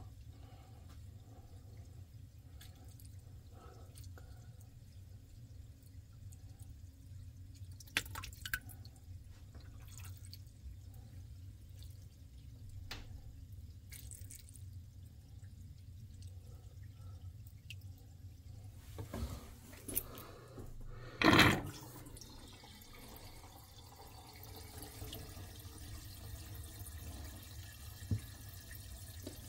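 Water draining down a just-snaked kitchen sink drain, with faint dripping and trickling. A few light clicks, and one short, louder clunk about two-thirds of the way through.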